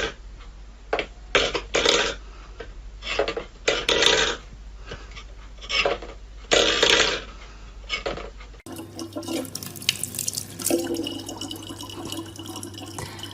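Water splashing in a sink in irregular bursts. About two-thirds of the way through it changes to water running from a tap over a steady low hum.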